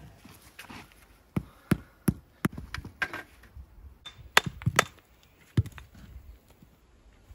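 Sharp knocks of a hand tool striking stone: about seven irregular strikes, the loudest just past the middle.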